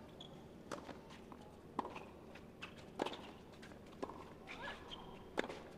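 Tennis ball struck back and forth with rackets in a rally on a hard court, starting from a serve: five sharp hits about a second apart, with lighter ball bounces between them.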